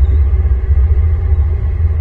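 Steady, loud low rumble with no breaks.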